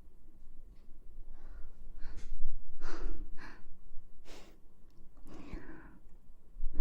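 A series of breaths and sighs close to the microphone, about six short puffs.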